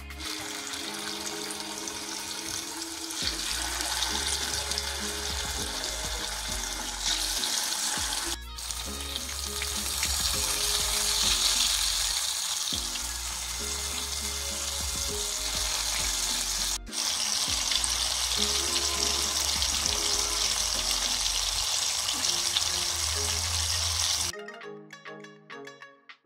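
Masala-coated fish pieces sizzling as they shallow-fry in hot oil in a pan, with background music underneath. The sizzle breaks off briefly twice and stops near the end, leaving only the music.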